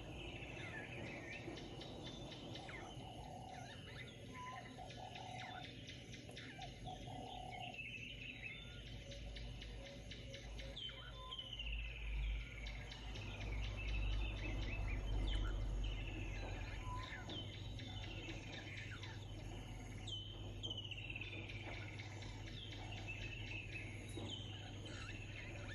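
Birds calling outdoors: high whistled calls that slide downward in pitch, repeated every few seconds over steady background noise. A low rumble swells in the middle and then fades.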